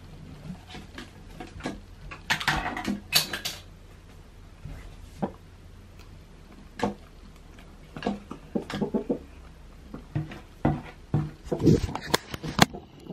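Irregular light taps and clatters on a white plastic bowl, some coming in quick clusters.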